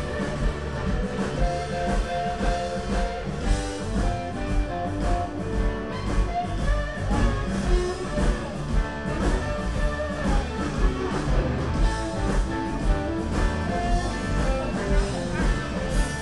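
Live blues band playing amplified through a stage sound system: electric guitars over a steady beat of about two beats a second.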